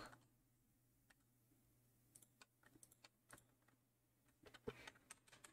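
Faint computer keyboard key taps and clicks, a few scattered ones from about two seconds in and a small cluster near the end, over near-silent room tone with a faint low hum.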